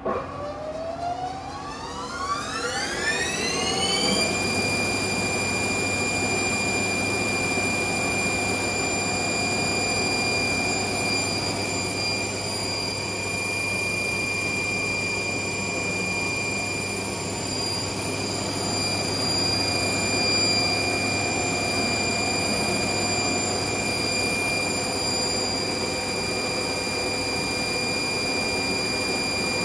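Haas TL-1 CNC lathe spindle spinning up: a whine that rises in pitch for about four seconds, then holds steady as the chuck turns at speed.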